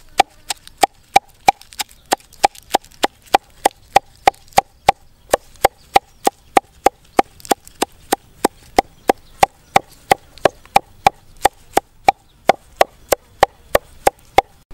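Cleaver chopping leafy greens on a wooden chopping block: a steady run of sharp knocks, about three a second, each blade strike ringing briefly against the wood.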